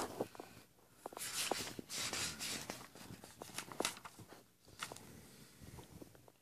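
Paper rustling and light handling knocks as the pages of a spiral-bound notebook are turned, in short scattered bursts.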